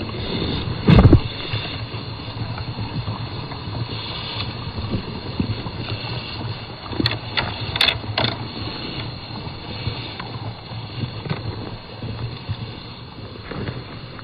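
Home-built LEGO Technic RC truck driving over mixed rocks and sand: its small electric drive motors and gears running, with a loud low thump about a second in and several sharp clicks a little past the middle.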